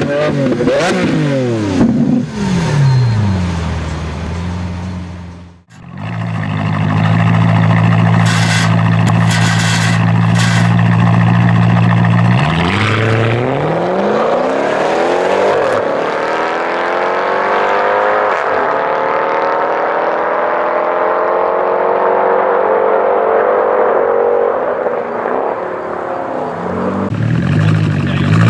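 Mercedes-Benz E63 AMG V8, X-piped with the catalytic converters removed. A rev falls away near the start, then the engine idles steadily, then it pulls a long full-throttle acceleration whose pitch climbs for about ten seconds, then it settles back to idle near the end.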